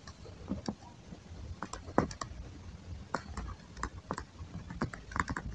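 Faint, irregular light clicks and taps of a stylus writing on a drawing tablet, a few a second, with one louder tap about two seconds in.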